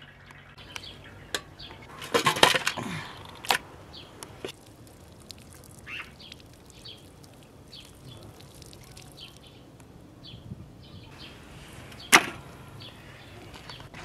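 Scattered knocks and slaps from wet fish being handled, with a cluster of them about two seconds in and one sharp knock near the end. Faint short chirps come and go in between.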